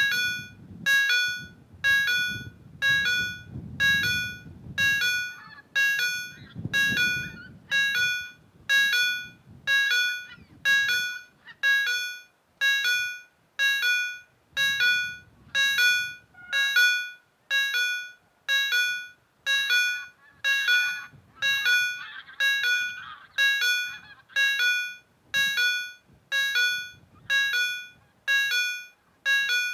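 Railway level-crossing warning bell starting up and ringing about once a second, each ring dying away before the next. The bell warns that a train is approaching the crossing.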